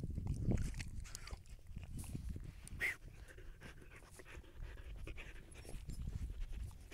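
Siberian husky sniffing and snuffling hard with its nose in loose soil right at the microphone: quick breaths and scrapes of earth over a low rumble.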